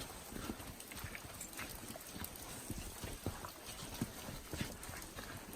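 Footsteps of a hiker walking on a stone trail, a steady, uneven tread of soft thuds roughly one to two steps a second.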